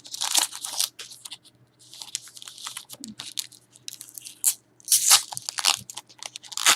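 Plastic wrapper of a Panini Titanium Hockey trading card pack being torn open and crinkled in the hands, in irregular crackling bursts, loudest about five seconds in.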